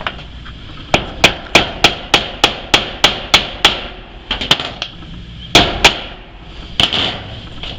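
Hammer driving a nail into a tin roof: a quick, even run of about ten strikes at roughly three a second, then a few more spaced blows, the metal roofing ringing with each hit.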